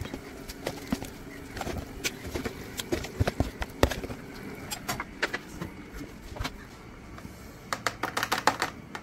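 Metal slotted spoon clinking and scraping against a plastic bowl and an aluminium pot as marinated chicken pieces are scooped across: irregular clicks and knocks, with a quicker run of them near the end.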